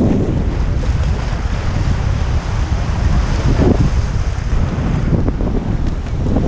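Strong wind buffeting the microphone aboard a sailboat under way in a fresh breeze, a steady loud rumble, with water rushing past the hull.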